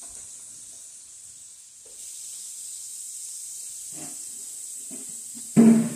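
Beef smash burger patties sizzling in a pan with a steady hiss. Near the end there is a short, loud vocal sound.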